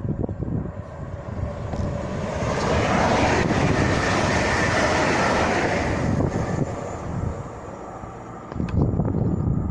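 A train passing through the station on the main line: a rush of wheel and air noise that swells, holds for a few seconds and fades away, with wind gusting on the microphone at the start and again near the end.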